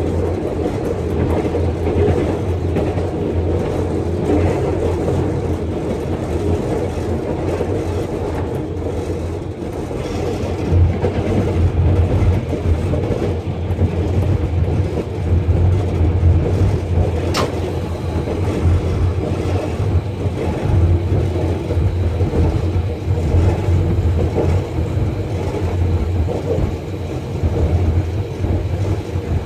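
Inside the cab of a ZCU-30 diesel-electric locomotive under way: a steady low diesel hum mixed with the rumble of the train rolling along the track, growing a little louder after about ten seconds. A single sharp click sounds a little past halfway.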